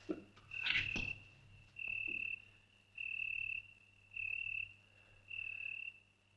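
Night-time chirping: a high, even trill pulsing about once a second, five times over. A brief rustle sounds about a second in.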